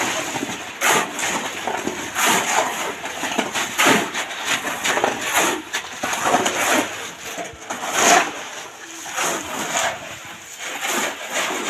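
Steel shovels scraping into and scooping gravel on a concrete floor, in repeated irregular scrapes about one every second.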